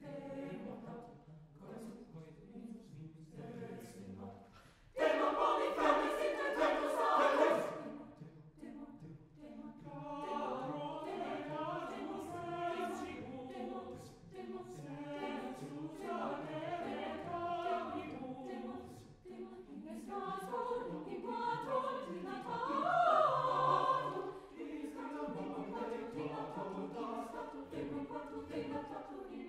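Chamber choir of mixed voices singing: soft at first, then a sudden, much fuller and louder entry about five seconds in, with sustained choral singing after that.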